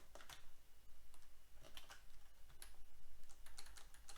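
Computer keyboard: a handful of separate keystrokes, sparse and uneven, as a line of code is typed.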